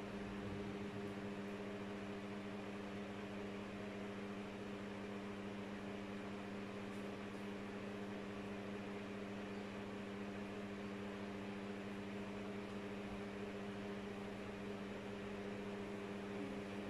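Steady machine hum made of a few low, fixed tones over a faint hiss.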